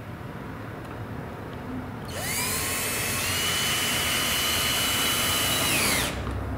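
Power drill driving a 1¼-inch screw into wood: the motor whine rises as it spins up about two seconds in, runs steadily for about four seconds, then stops.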